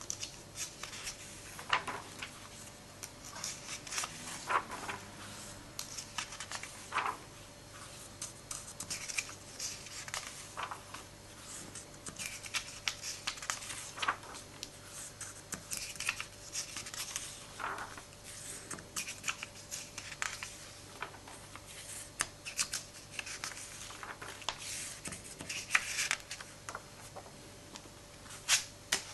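Glossy pages of a stapled comic book turned and smoothed flat by hand: irregular paper rustles, flicks and snaps every second or so, with a faint steady hum underneath.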